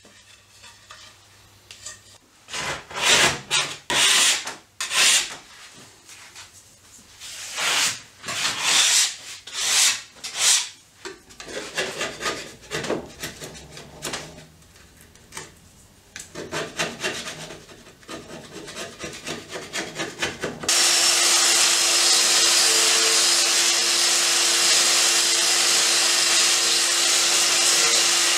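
A hand blade scraping dried glue off a glued-up panel of wood strips in irregular rasping strokes. About 21 seconds in, a handheld electric power tool starts abruptly and runs steadily and loudly on the wood, with a steady hum.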